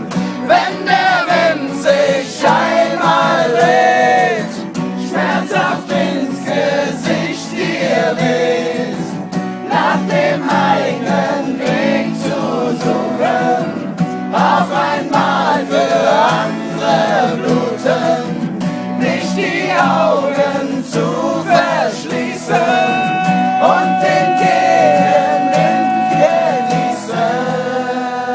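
A group of voices singing a German song together to guitar, a campfire singalong. Near the end one voice holds a long steady note.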